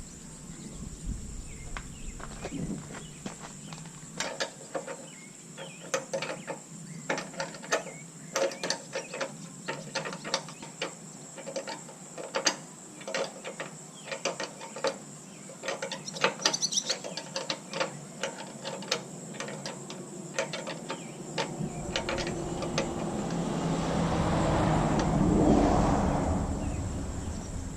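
Hand tools working on a pickup tailgate: a long run of irregular metallic clicks and ratcheting ticks, then a noise that swells and fades over the last few seconds.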